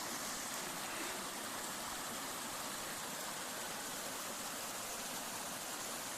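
Mountain waterfall rushing steadily, an even hiss of falling water.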